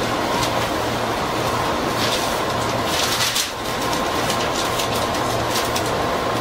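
JR 205-series electric commuter train pulling out of a station, heard from its driving cab: steady running noise of wheels on rails with a thin steady tone and a low hum that pulses about twice a second. A few sharp clicks come as the wheels cross rail joints and points.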